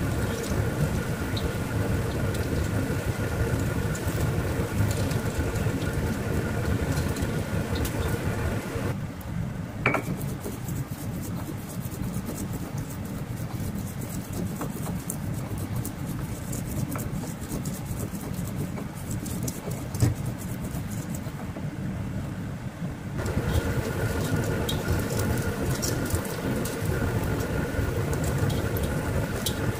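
Bakwan vegetable fritters sizzling in hot oil in a wok, with a steady hum. From about nine seconds in to about twenty-three, a stone pestle grinding chillies in a stone mortar for sambal, with many small clicks and taps, before the frying sizzle returns.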